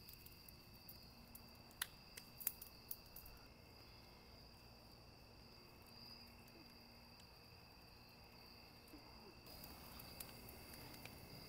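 Faint, steady chorus of crickets, with a few soft clicks in the first three seconds.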